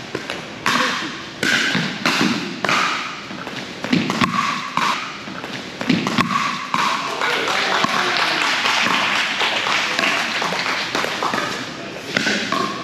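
Pickleball rally: paddles hitting a plastic pickleball, a sharp pop about once a second for the first seven seconds or so, then several seconds of crowd voices and noise.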